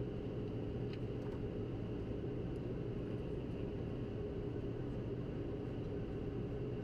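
Steady cockpit noise of a private jet in flight on approach: airflow and engine noise with several constant hums and a hiss, plus a faint tick about a second in.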